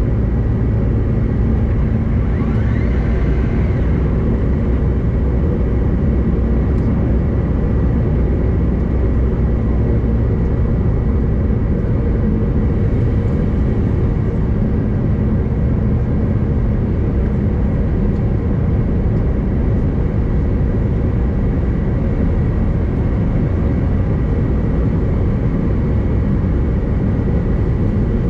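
Steady cabin noise inside a CRJ-900LR regional jet in flight: a deep, even rumble of airflow and its two rear-mounted turbofan engines, with a thin steady whine above it.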